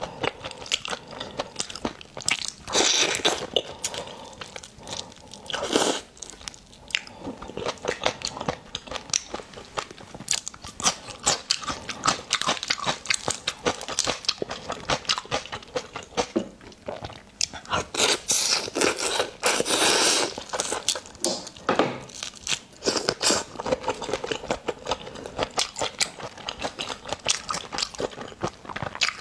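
Wet, crunchy eating of raw shrimp: shells being peeled and cracked, with chewing, biting and clicking mouth sounds in quick succession. There are a few longer, denser stretches of wet noise, about three seconds in and again around eighteen to twenty seconds in.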